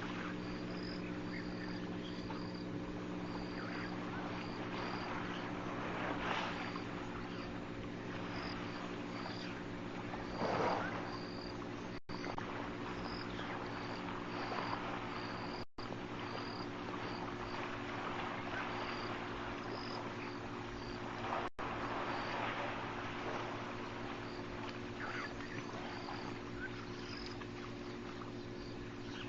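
A high, cricket-like chirp repeating about one and a half times a second over a steady low hum, with a couple of brief swells of rustling noise.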